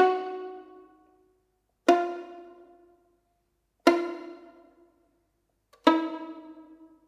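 Solo violin playing slow, single plucked (pizzicato) notes, four of them about two seconds apart, each sharp at the start and ringing away within about a second.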